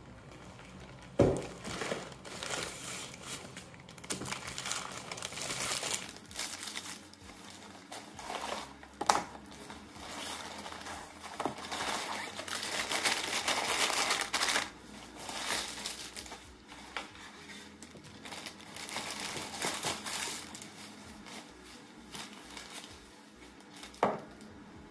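Plastic grocery packaging and shopping bags rustling and crinkling as groceries are unpacked onto a counter, in irregular handfuls. A few sharp knocks as items are set down, the last one near the end as a glass jar goes down on the counter.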